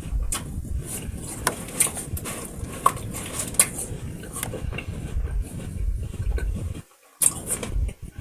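Irregular clicks, rustles and light knocks from close-up handling at the table, over a low rumble. It drops out briefly about seven seconds in, then picks up again.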